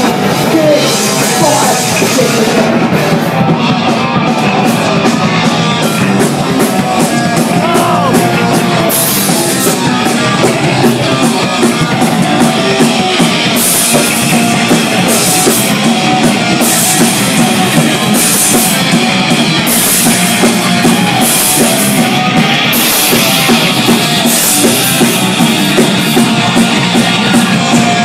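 A punk rock band playing live and loud: distorted electric guitar, bass and drum kit, with repeated cymbal crashes through the second two-thirds.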